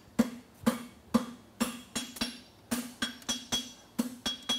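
Hand hammer striking a red-hot steel bar on an anvil, forging the jaw of a pair of farrier's hot fitting tongs. The blows come in a quick, uneven run of about two to three a second, and the anvil rings after each one with a clear high note.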